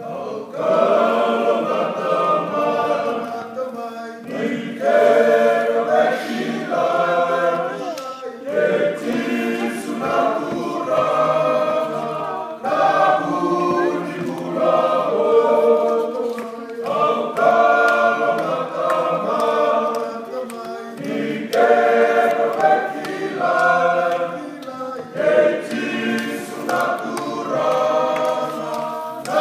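Fiji rugby sevens team, a group of men, singing unaccompanied in several-part harmony as a choir. The phrases last a few seconds each, with a brief breath between them.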